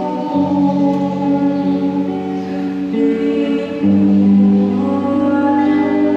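A Catholic worship song performed live by a woman singing over instrumental backing, in long held notes that change pitch every second or few.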